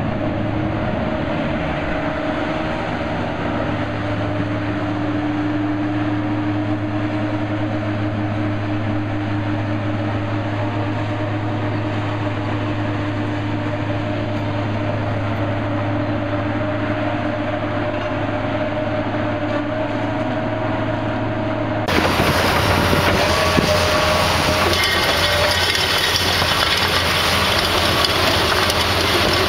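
Diesel engine of a tracked feller buncher running steadily under load. About three quarters of the way through it changes abruptly to the louder, noisier rattle of an excavator's screening bucket turning and sifting soil.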